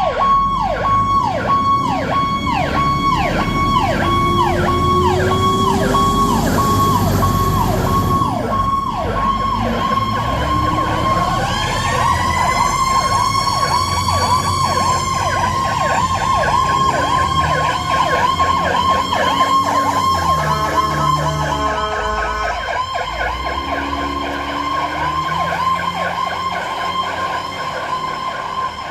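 Fire apparatus electronic sirens on an emergency response: a fast yelp of quick falling sweeps over a steady high tone, joined about eleven seconds in by a slow rising and falling wail. Engine rumble runs underneath.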